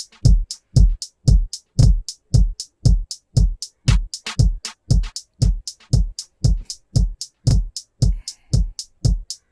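Electronic drum-machine loop played through the Klevgrand Richter Tectonic compressor plugin: a deep kick about twice a second, each dropping in pitch, with crisp hi-hat and snare hits between, while the compressor's bass and treble controls are being tried.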